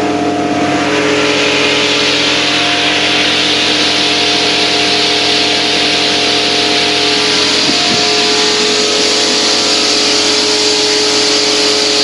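Self-service coin-operated car wash machine running: a loud, steady hiss with several steady humming tones from its machinery beneath.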